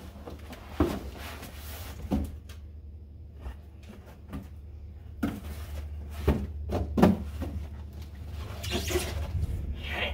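Cardboard boxes being handled: a smaller box is shifted about and lifted out of a large shipping box, with scattered bumps, scrapes and rustles of cardboard on cardboard, over a steady low hum.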